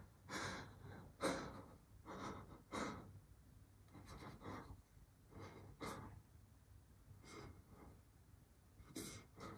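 A man's quiet, uneven breathing: a series of short gasping breaths and sighs, spaced irregularly a second or so apart, with a last one near the end.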